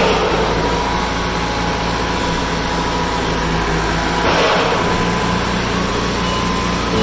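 Toyota forklift running steadily with a low hum and a higher steady whine while its hydraulic paper roll clamp rotates a large paper roll. A short rush of noise comes about four and a half seconds in.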